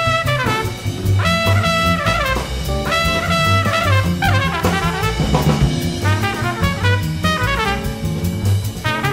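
Big-band jazz played live: trumpets and trombones over a swinging drum kit, with a steady low bass pulse.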